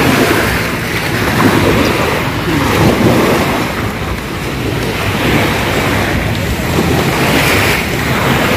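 Wind rushing over the microphone, mixed with the wash of small waves on the shore, in a steady noise that swells and eases.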